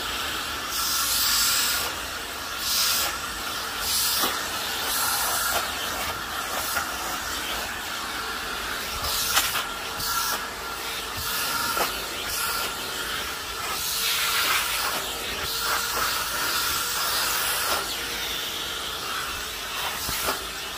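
Filter Queen Majestic canister vacuum running, air rushing through its dusting-brush attachment as the brush is worked over leather upholstery. A steady motor whine sits under a hiss that swells and falls every second or so as the brush moves.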